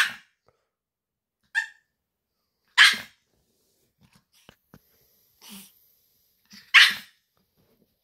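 Pomeranian giving short, sharp barks a second or two apart, its wake-up 'alarm' demanding that its owner get up and feed it.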